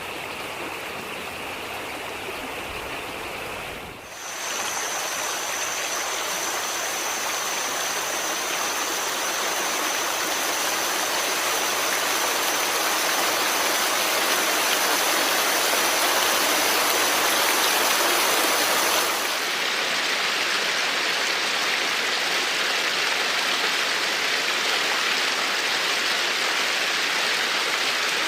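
Flowing river water rushing steadily. The sound cuts abruptly to a louder, fuller rush about four seconds in and changes again near the end, as one water recording gives way to another. A thin, steady high whine runs through the middle part.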